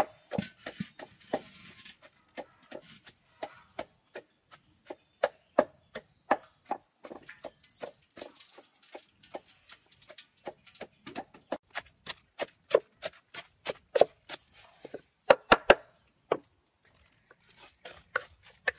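Wooden pestle pounding dried red chilies in a wooden mortar: a steady run of dull knocks, about two to three strikes a second, with a quick, louder flurry of strikes about two-thirds of the way in.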